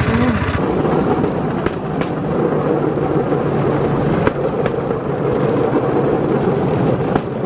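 A bamboo train (norry) running along the rails: a steady clattering rattle from the platform and wheels, with a few sharp clacks as the wheels cross rail joints. The small engine's regular beat drops away about half a second in.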